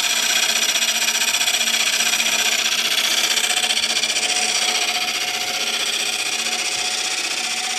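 Bowl gouge cutting into a wood blank spinning on a lathe: a steady hissing cut as shavings peel off, with a steady hum underneath, easing slightly in the second half.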